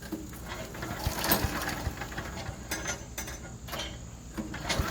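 Irregular mechanical rattling and clicks at a stalled Harbor Freight wood chipper as it is being restarted. Its engine catches and starts running just at the end.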